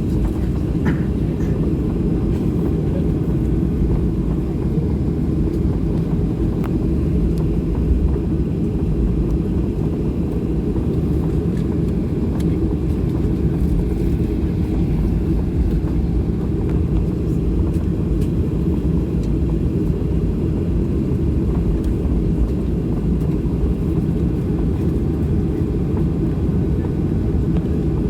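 Cabin noise of a Boeing 737-800 on the ground with its CFM56 engines running: a steady low rumble that neither builds nor fades, with a few faint clicks.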